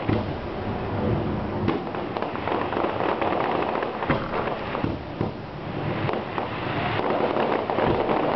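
Fireworks crackling: a dense, continuous hiss of many small sharp pops, like crackle shells, with a few louder cracks among them.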